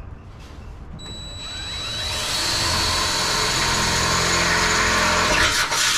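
Cordless drill boring a pilot hole through the truck's engine-bay sheet metal. The motor's whine starts about a second in and climbs in pitch as it speeds up, then the bit cuts loudly and steadily through the metal.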